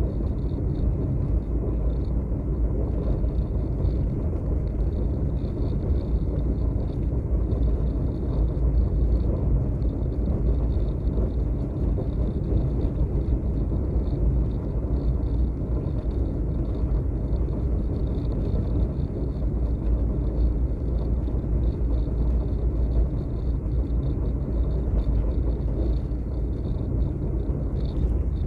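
Steady low rumble of wind and road noise on the microphone of a moving vehicle, with a faint flickering high hiss above it.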